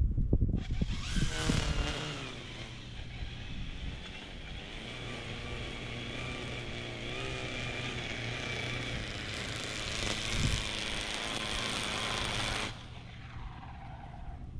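Battery-powered Toro Revolution equipment running: an electric whine with several wavering tones over rushing air, over a steady low hum. The whine and rush start about half a second in and cut off abruptly near the end.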